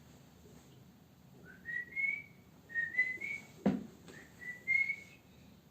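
A person whistling in three short phrases of brief notes, each note sliding slightly upward. A single sharp knock falls between the second and third phrases.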